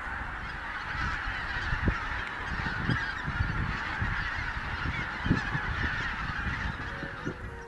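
A large flock of geese calling in flight: a dense, continuous chorus of many overlapping honks, with irregular low thumps underneath.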